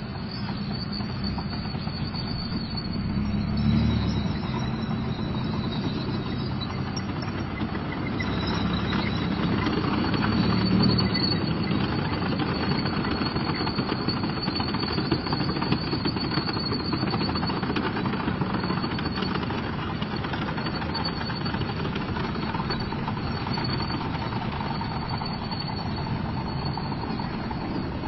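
Leopard 2A4 tank's V12 diesel engine running, a steady rattling drone with a thin high whine over it, swelling briefly about four seconds in and again around eleven seconds.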